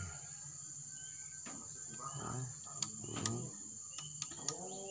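Steady high-pitched insect chirring, with a few sharp clicks and faint voices in the background.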